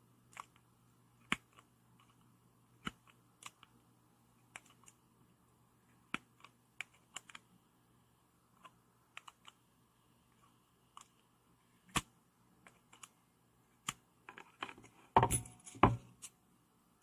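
Sparse, faint metallic clicks from Engineer Neji-saurus PZ-22 screw-extraction pliers gripping and turning a stripped screw head, which is loosening slowly. Near the end, a short louder burst of clicking and rattling as the tools and the light are handled.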